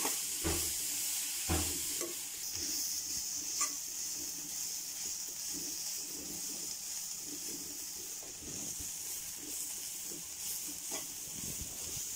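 Grated carrot sizzling as it fries in ghee in a kadai, stirred and scraped round the pan with a wooden spatula, with a few knocks of the spatula against the pan in the first few seconds. The carrot is being fried in the ghee until its raw smell is gone.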